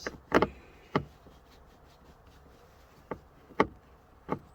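Sharp clicks and knocks of interior plastic trim and tools being worked loose inside a car, about six separate hits, the loudest about a third of a second in and again about three and a half seconds in.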